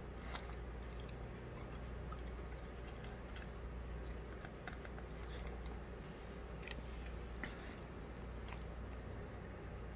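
Elderly greyhound eating soft, moist food from a bowl: small wet chewing and mouth clicks, scattered and irregular, over a steady low hum.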